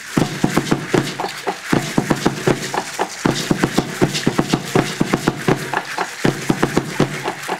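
Fast, steady drumbeat accompanying Aztec dancing, several strokes a second.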